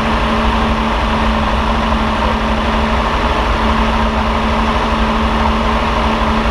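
Freshly rebuilt 1962 Ferrari 250 GT/E's 3-litre Colombo V12 idling steadily, heard close up over the open engine bay.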